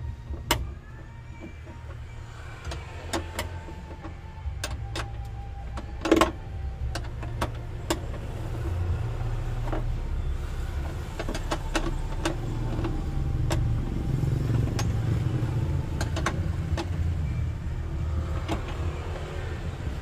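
Scattered sharp metallic clicks and taps of a wrench turning the mounting bolt of a seatbelt retractor on a minivan's steel body panel, with one louder clack about six seconds in. A steady low hum runs underneath.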